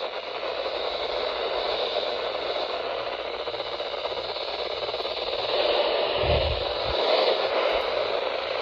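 Radio receiver hissing with steady static, with a short low rumble about six seconds in.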